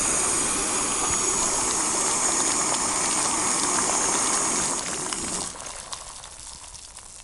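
Jetboil Flash gas stove running, with water at a rolling boil in its cup: a steady hiss of burner and bubbling. About five seconds in the sound drops away to a much quieter hiss.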